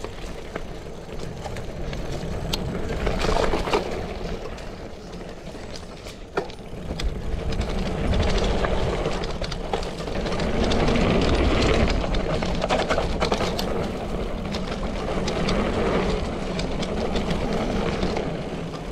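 Mountain bike rolling down a dirt trail: tyre noise with a low rumble and scattered knocks and rattles over rough ground, louder from about seven seconds in.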